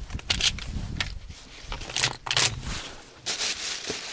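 Dry reeds rustling and scraping in irregular bursts close to the microphone, over a low rumble of handling noise.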